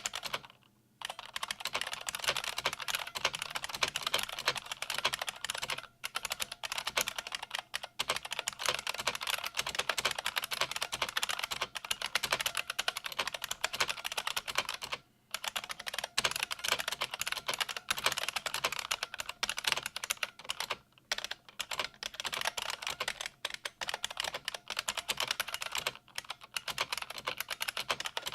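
Fast continuous typing on a 1988 IBM Model M122 keyboard, its buckling-spring keys giving loud crisp clicks, broken by a few short pauses.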